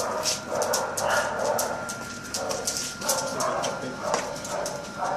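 A dog's claws clicking and scuffing on a tiled floor as it walks, irregular clicks several a second; the dog is walking on an injured, bandaged front leg.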